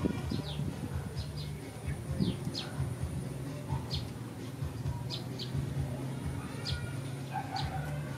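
Small birds chirping: about a dozen short, high, falling chirps at irregular intervals, over a steady low hum.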